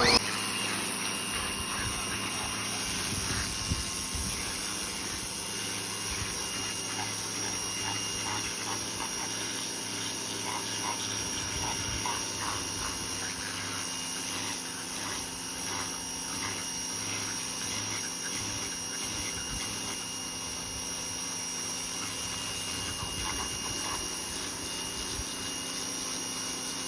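Ryobi 2000 PSI electric pressure washer switching on and running steadily, its electric motor and pump giving a steady high whine over the hiss of the water jet cleaning dirt off wood.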